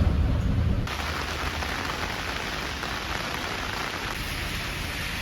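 Steady heavy rain hissing, with a low rumble of thunder during the first second that stops abruptly.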